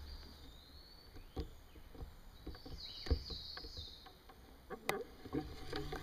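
Faint clicks and knocks of a bowfishing bow and its arrow rig being held and aimed, with a sharper click about five seconds in. High chirping calls from the creekside wildlife come twice in the background.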